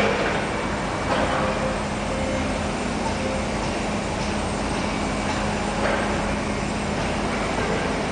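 Steady background noise, a hiss and rumble with a low steady hum, broken by a few faint clicks.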